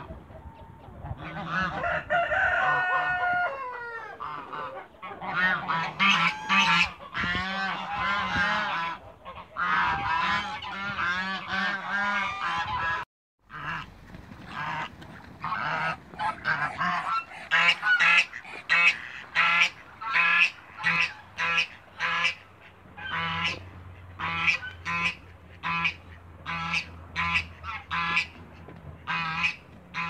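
African geese honking loudly in a flock, long overlapping calls over one another. After a brief break about 13 seconds in, the honking settles into a run of short, even honks, about two a second.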